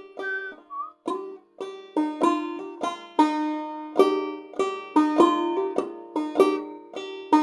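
Five-string banjo played clawhammer style in sawmill tuning, tuned a tone and a half low. A few separate notes come first, then it settles into a steady picking rhythm about two seconds in.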